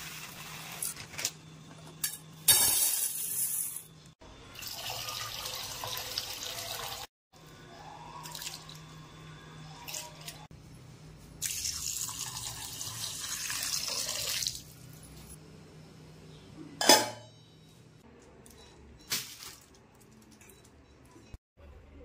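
Water running from a kitchen tap in several bursts of a few seconds each, with knocks and clinks in between and a faint low hum underneath.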